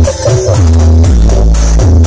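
Electronic dance music played very loud through a large outdoor sound system with stacked subwoofers. Heavy bass dominates, with deep notes sliding down in pitch about once a second.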